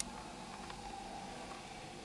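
Steady low hiss and hum of workshop background noise, with one sharp click at the very start and a few faint ticks shortly after.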